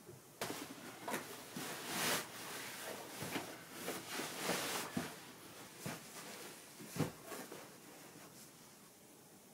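Bedding fabric rustling and swishing as a fitted mattress cover is pulled on and pillows are handled, in a run of dense rustles for the first half, then sparser ones with one soft thump about seven seconds in.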